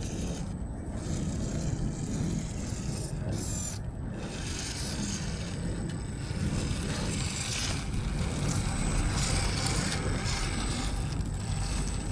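Axial Capra radio-controlled rock crawler driving over rough wet ground: electric motor and gear drivetrain whirring, mixed with uneven scraping and crunching from the tyres and chassis.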